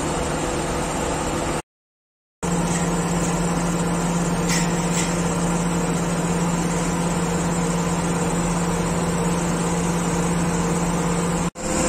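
Diesel engine of an XCMG QY25K5A truck crane running steadily, with a constant low hum. The sound cuts out briefly twice.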